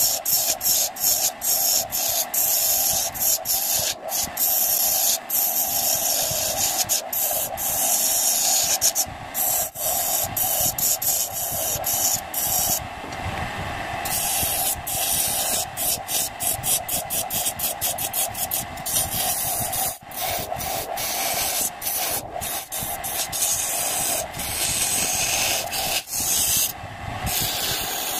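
Wood lathe running with a steady hum while a chisel cuts a spinning acacia blank, giving a dense scraping hiss that keeps breaking off briefly as the tool lifts and meets the wood again.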